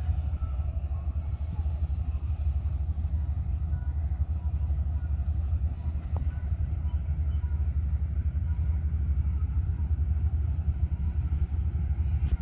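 Combine harvester engine and machinery running steadily with a deep, even low rumble.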